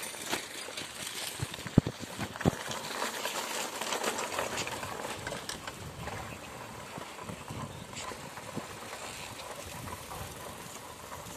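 Bicycle ridden over a gravel and dirt track: a steady rattle of the frame and tyres on the rough ground, with two sharp knocks about two seconds in.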